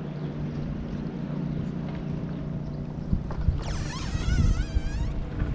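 Steady low hum from the bass boat, with a high warbling, wavering sound for about a second and a half near the end.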